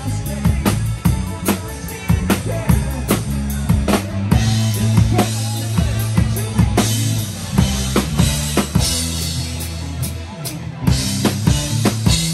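Live rock band playing, heard from on stage beside the drum kit: kick drum, snare and cymbals loud and up front over electric bass and guitar.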